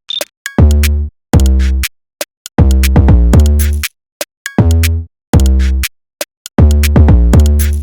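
Electronic hip-hop style background music: a drum-machine beat with booming bass hits and ticking hi-hats in a steady rhythm.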